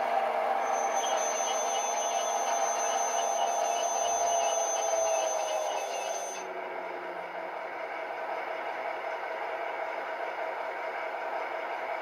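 Sound decoder in an H0 model of the DR SVT 18.16 diesel railcar, playing railcar diesel sound through small 13x18x13 mm loudspeakers as the train slows to a stop. The engine tone falls slightly while a high steady squeal sounds; about six seconds in the squeal cuts off and a quieter steady running sound is left.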